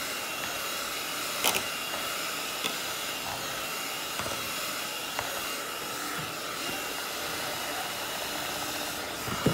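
Electric hand mixer running steadily, its beaters whipping mashed potatoes in a stainless steel pot, with a few sharp clicks, the loudest about one and a half seconds in.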